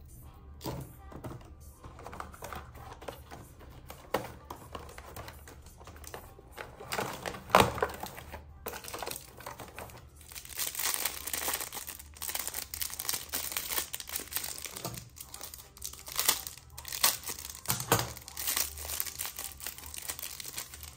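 Packaging being handled and crinkled by hand during unpacking: irregular rustling and crackling with scattered sharp clicks, busier in the second half.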